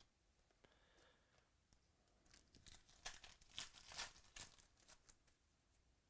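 Trading-card pack wrapper being torn open and crinkled. A quick flurry of short rustles starts about two seconds in and dies away after about three seconds.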